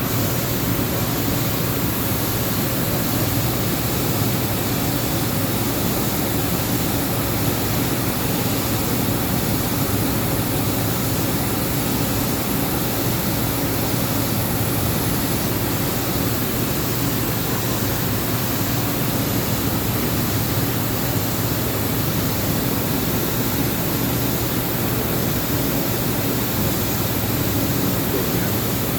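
Chiron FZ 08 MT mill/turn machining center running under power without cutting: a steady whirring drone with a low hum and, for the first half, a faint high whine.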